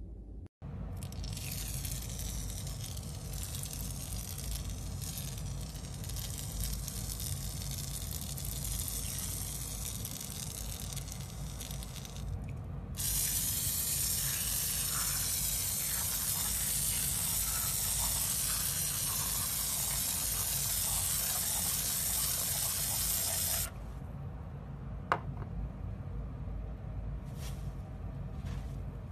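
Foamy slime being handled, with a steady spray-like hiss throughout. The hiss grows louder for about ten seconds in the middle, then drops back. After that comes softer squishing with one sharp click and a few small pops near the end.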